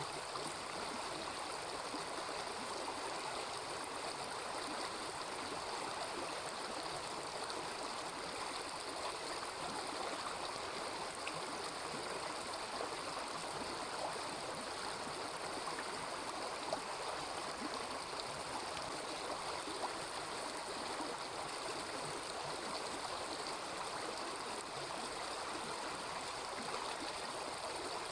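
Small river babbling steadily, with a couple of faint campfire crackles past the middle.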